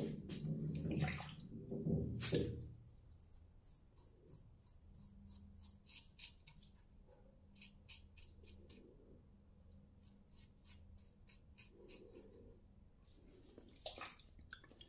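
Water splashing as a safety razor is rinsed for the first two or three seconds, then the faint scratchy crackle of the razor's blade cutting lathered stubble in short strokes, and another brief rinse near the end.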